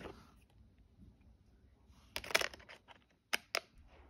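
Handling of a plastic Blu-ray case: a short cluster of clicks and rustling about two seconds in, then two sharp clicks near the end.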